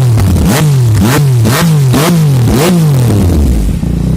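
Yamaha MT-09's three-cylinder engine through a Kimoto Superbike aftermarket full-system exhaust, revved in quick throttle blips about twice a second, each rise followed by the revs falling back. Near the end it drops to a steady idle.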